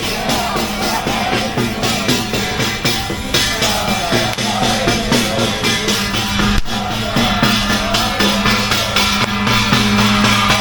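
Background music with a steady drum beat, in a rock style.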